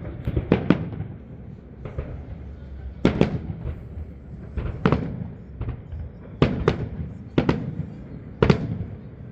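Fireworks display: aerial shells bursting in a dozen or so sharp bangs, often in quick pairs, about one or two a second, each trailing off in a short rumble.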